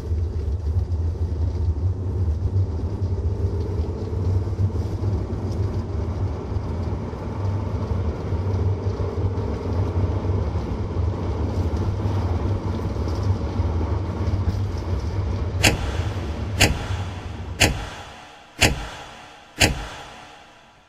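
Steady low road rumble of a car being driven, heard from inside the cabin. Near the end the rumble fades out and five sharp clicks come about a second apart.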